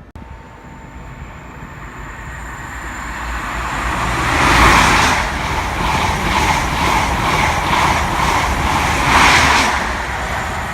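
A train passing close by at speed: the noise builds, then a regular run of wheel clicks, about three a second, as the carriages go past, with a second loud swell near the end before it fades.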